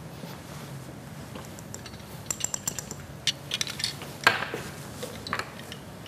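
Light clinks and taps of glass kitchenware as a small glass dish of starch is emptied into a glass mixing bowl. The run of short, ringing clinks starts about two seconds in and stops about five and a half seconds in.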